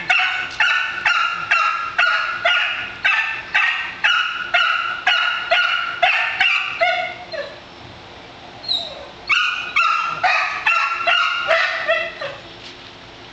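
Labrador retriever puppy barking, a run of high, short barks about two a second; the barking stops for about two seconds past the middle, then goes on for a few seconds more.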